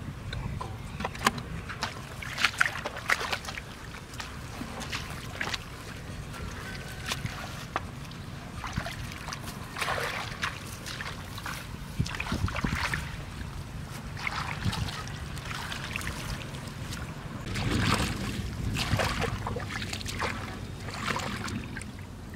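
Shallow water splashing and sloshing irregularly, as people wade and grope for fish by hand. A steady low rumble runs underneath.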